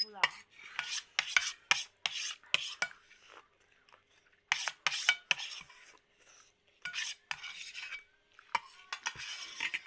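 Close-up eating sounds: a spoon and fork scraping and clicking against metal plates, with instant noodles being slurped and chewed.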